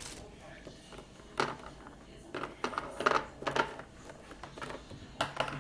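Fidget toys clattering and clicking as they are handled and dropped into a container, in irregular bunches of knocks.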